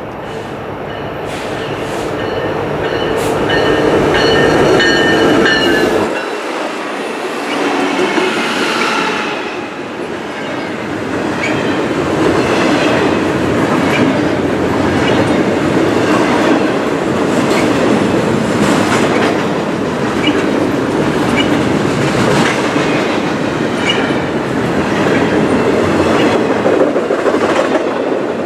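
Diesel-hauled double-stack intermodal freight train passing close by. The locomotive's engine rumble builds over the first six seconds and then goes by, with a high-pitched squeal. The container cars then roll past with a steady clickety-clack of wheels over rail joints.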